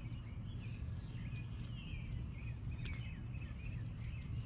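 Small birds chirping and singing over a steady low background rumble, with a sharp click about three seconds in.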